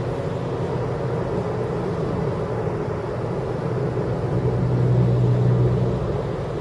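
Car driving along a road, heard from inside the cabin: steady engine and road noise with a low hum that grows louder about four seconds in, then eases off near the end.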